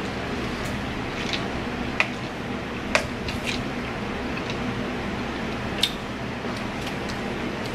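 Quiet sounds of eating at a table: three sharp little clicks of a fork, plate and paper drink cup, about two, three and six seconds in, over a steady low hum.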